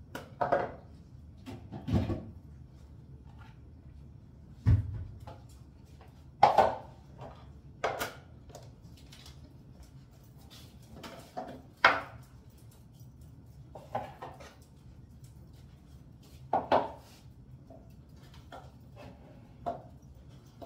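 Intermittent clatter and knocks of dog food bowls being handled and set down on a kitchen table, about ten separate clacks with a dull thump about five seconds in.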